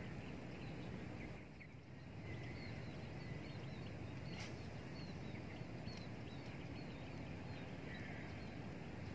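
Outdoor ambience: a steady low background rumble, with a small bird chirping over and over from about two seconds in. A single sharp click comes near the middle.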